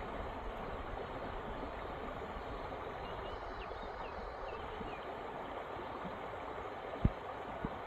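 Creek water flowing steadily over stones, with a few faint bird chirps about halfway. Near the end come two short low thumps, the first louder.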